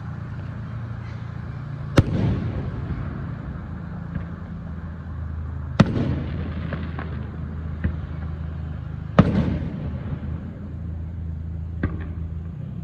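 Three loud, sharp bangs (about two seconds in, near six seconds and near nine seconds), each followed by a short rumbling tail, with fainter pops in between, over a steady low hum.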